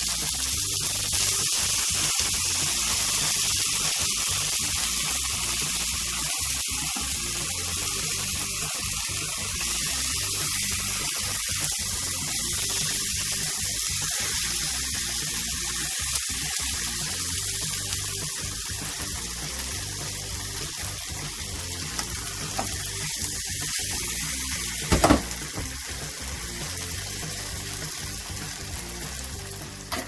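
Steady sizzling of makchang frying in a pan, over quiet background music. A single sharp clack about 25 seconds in.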